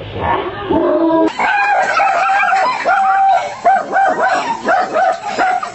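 A dog barking in a quick run of high-pitched barks, about three a second, starting about a second in.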